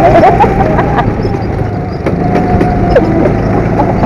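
Go-kart's small engine running at speed, buffeted by heavy wind noise on the onboard camera's microphone, with a few brief high squeals.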